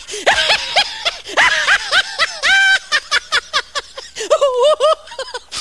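High-pitched laughter: a quick run of short giggling cackles, with one held squeal about two and a half seconds in.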